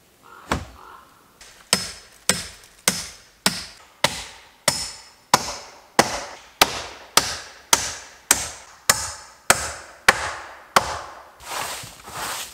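A hammer driving nails into the pallet-wood timber frame. After a single knock it strikes in a steady rhythm, a little under two blows a second, each blow ringing briefly, and the blows turn softer near the end.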